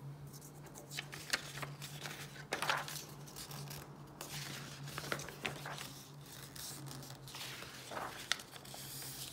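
Sheets of paper handled and flipped over on a wooden tabletop: irregular rustling and crinkling, with a few sharp snaps of the paper.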